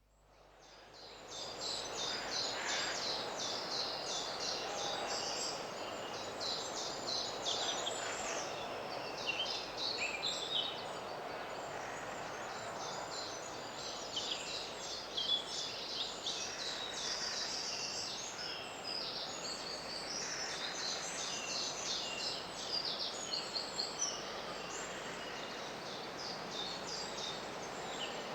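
Many woodland birds singing at once, a dense chorus of overlapping chirps and trills, over a steady background hiss of running water or rustling leaves. It fades in over the first second or two.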